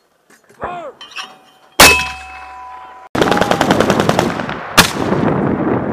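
An M252 81mm mortar fires once with a loud sharp blast about two seconds in, with a ringing tone and low rumble fading after it. From about three seconds in, an M240B machine gun fires rapid sustained automatic fire, with one louder report near the end.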